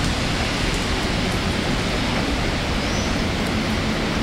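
Heavy downpour: a steady, even hiss of rain.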